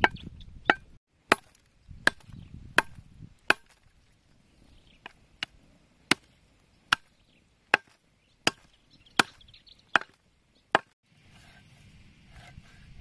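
Large machete-like knife chopping pork leg on a round wooden chopping block: a steady run of about fifteen sharp chops, roughly one every three-quarters of a second, stopping about two seconds before the end.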